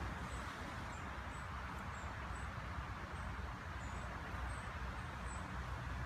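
Steady outdoor background: a flickering low rumble and an even hiss, with faint high ticks about twice a second.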